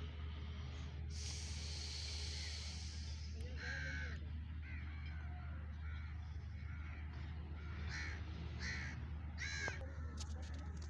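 Crows cawing: one call about four seconds in, then three short calls close together near the end, the last the loudest, over a steady low hum. A hiss comes between about one and three seconds in.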